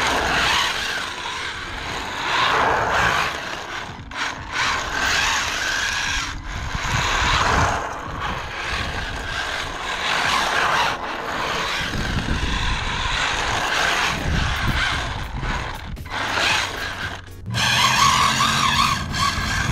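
Small brushed-motor RC drift car driving and sliding on asphalt on hard, treadless drift tires: whine of the motor and gears coming and going with the throttle, over the scrape of the plastic tires on the pavement. Near the end the whine steadies into a clearer pitch.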